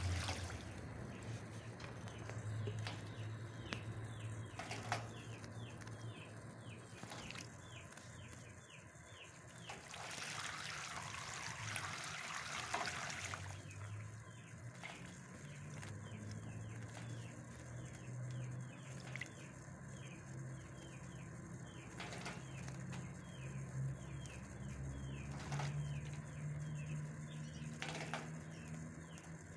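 European goldfinch bathing in shallow water, splashing and fluttering its wings, with a long bout of splashing about ten seconds in and several short splashes spread through the rest. Small birds chirp rapidly and steadily behind it.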